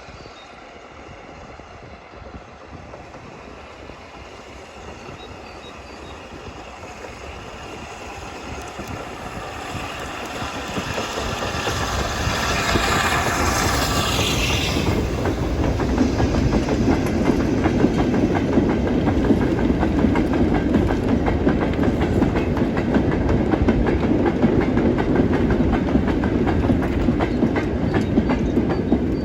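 Peppercorn A1 Pacific steam locomotive 60163 Tornado hauling a freight train past, growing steadily louder over the first half as it approaches. It then stays loud with a rumble and a steady clickety-clack as the wagons roll by.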